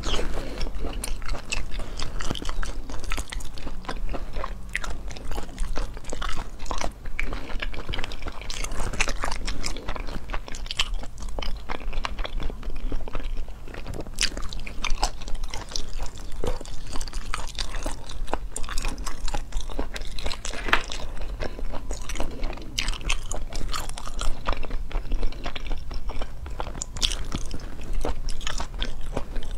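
Close-miked eating: biting into and chewing pieces of spicy braised meat, with many short sharp mouth clicks and smacks. A steady low hum runs underneath.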